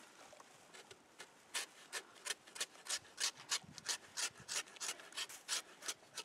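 Old Hickory butcher knife shaving bark and wood off an aspen log, drawn two-handed like a drawknife in quick, short scraping strokes at about four a second. The strokes start after a quieter first second or so.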